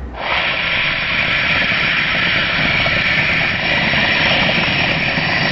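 Aerosol can of coconut whipped topping spraying onto a pancake stack: a loud, steady hiss that starts suddenly and runs on without a break.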